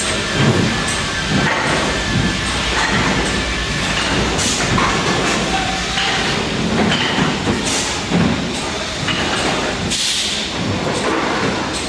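MPCNC (Mostly Printed CNC) machine running: a dense, steady mechanical noise with rapid irregular clatter, and several brief high whines as its motors change speed.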